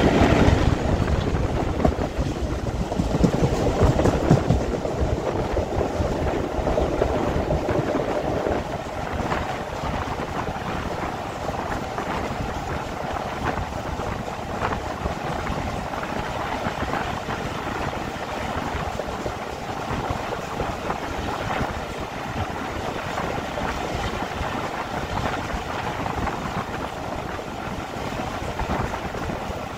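Diesel train running and fading away over the first eight or nine seconds, leaving a steady even noise with wind on the microphone.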